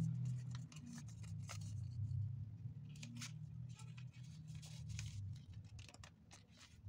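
Origami paper being folded and creased by hand: a scatter of short crackles and rustles as the sheet is handled and pressed flat, over a low steady hum.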